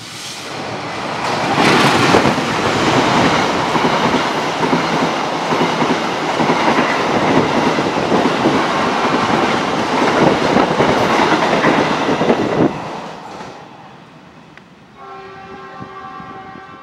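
A CC 204 diesel-electric locomotive and its passenger carriages passing close by. The noise of the engine and the wheels on the rails swells over about two seconds, stays loud for about ten seconds, then fades quickly as the train goes by.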